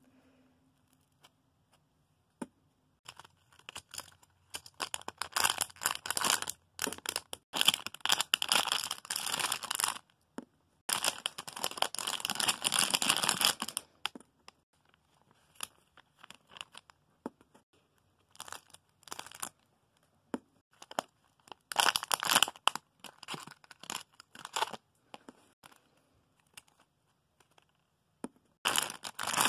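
Plastic packaging bag crinkling and rustling in irregular bursts as a squishy toy is taken out of it and handled, with short quiet gaps between.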